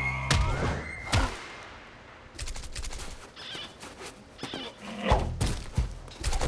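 Cartoon sound effects of a polar bear landing head-first in sand: a sharp thud about a second in, then a run of short knocks and brief muffled grunts, and two heavier thuds near the end.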